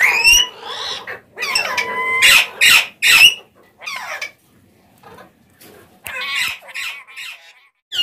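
Alexandrine parakeets squawking in a run of harsh, short calls, loudest in the first three seconds and with one short held whistled note about two seconds in, then softer calls after a brief lull.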